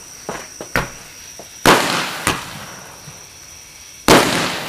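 Two loud firecracker bangs about two and a half seconds apart, each trailing off over about a second, after a few small sharp pops. Crickets chirp steadily in the background.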